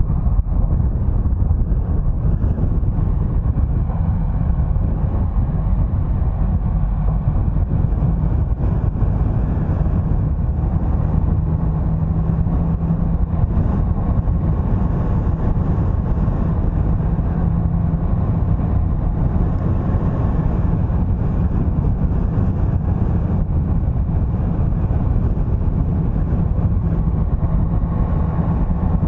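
A car driving along the road: a steady low rumble of engine and tyre noise, with an engine tone that swells a little at times.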